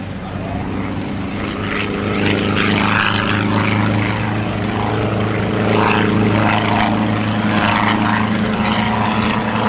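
Schweizer 300C piston-engine light helicopter flying past, its engine and rotors making a steady drone that grows louder over the first few seconds as the helicopter comes closer.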